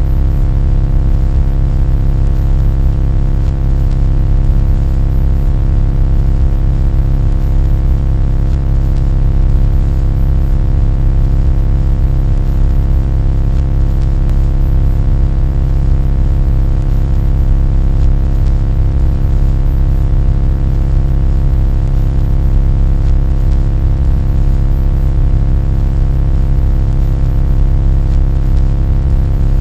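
A loud, steady, low-pitched droning hum with many fixed overtones, unchanging throughout.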